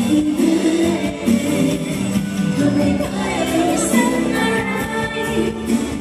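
Live band music with a woman singing through a microphone and stage sound system.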